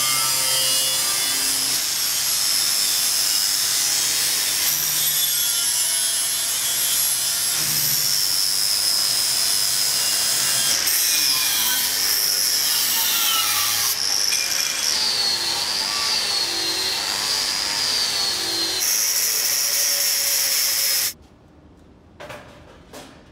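Angle grinder working steel: a high motor whine over the hiss of a flap disc grinding down welds, in several short runs; in the middle the whine sags and wavers as the disc is loaded against the metal. About 21 s in the grinding stops suddenly, leaving a quiet stretch with a couple of light knocks.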